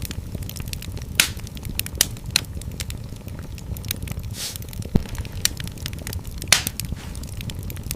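Wood fire burning in a fireplace: a steady low rumble of flames with irregular crackles and sharp pops from the burning logs, and a brief hiss about halfway through.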